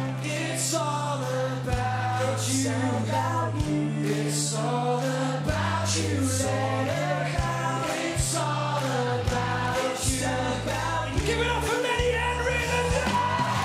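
Pop-rock band playing live: a male lead vocal with voices singing together, over electric guitars, bass guitar and drums with cymbal crashes about every two seconds.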